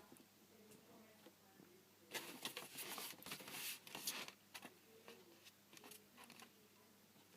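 Paper packaging crinkling and rustling as it is handled, in a burst of crackles about two seconds in that lasts a couple of seconds, with faint handling noise around it.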